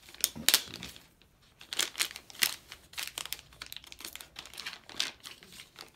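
Clear plastic sleeve crinkling and crackling in irregular bursts as it is handled and a chisel is worked out of it by hand.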